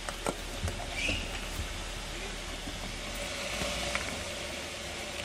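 Honda SUV crawling over loose rocks: a steady hiss with scattered clicks and knocks of the tyres on stones, and a faint low engine rumble underneath.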